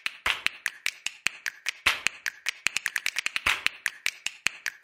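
Percussive intro track: a quick, steady rhythm of sharp snapping clicks, about five a second, with a louder accented hit roughly every second and a half.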